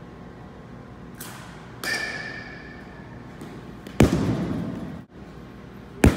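Two pitched baseballs smack into the batting-cage netting about two seconds apart, each hit sudden and loud with an echoing tail from the large hall. A fainter ringing knock comes about two seconds in.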